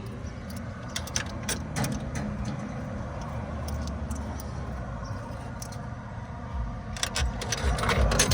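Steady low road-traffic rumble, with scattered sharp clicks and rattles about a second in and again, more thickly, near the end.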